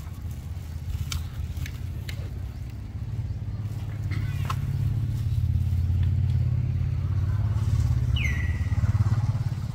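A low engine rumble, like a passing motor vehicle, growing louder over several seconds and easing off near the end. A short high chirp that falls in pitch sounds about eight seconds in.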